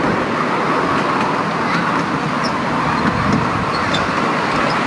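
7.25-inch gauge miniature railway train running along the track, its carriage wheels making a steady rumble heard from a passenger carriage, with a few faint ticks.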